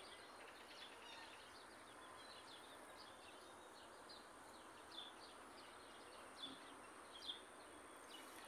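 Faint, high, short chirps of small birds, several a second and irregular, over a steady hiss. A few louder chirps come about five, six and a half and seven seconds in.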